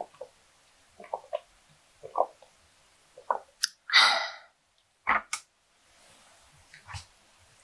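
Milk being gulped from a glass: a series of swallows about a second apart. About four seconds in comes the loudest sound, a breathy exhale after the drink. A couple of clicks follow, then a soft knock near the end as the glass is set down on a rattan coaster.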